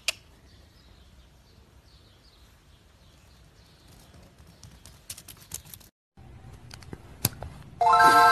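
Small hooves clicking on a concrete yard in a quick run of clicks about four to five seconds in, with faint bird chirps behind. Near the end a bright bell-like chime rings out and slowly fades; it is the loudest sound.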